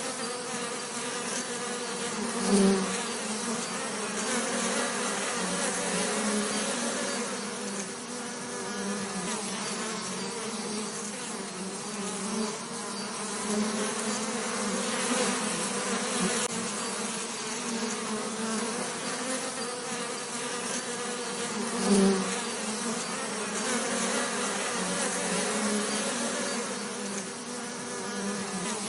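Honeybees buzzing in a continuous, wavering drone, with a brief louder buzz twice, as if a bee passes close.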